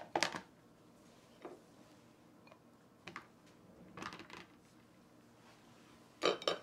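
Scattered light knocks and scrapes of a utensil and dishes as butter is worked into a small pan, with a pair of louder knocks near the end.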